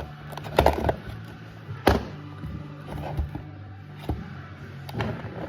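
Toy packaging being handled and opened: a few sharp clicks and crackles, the loudest about half a second and two seconds in, over quiet background music.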